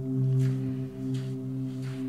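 Ambient drone music: a sustained low tone with ringing overtones, like a singing bowl or synth pad, swelling and easing gently. Faint soft swishes come through about every 0.7 s.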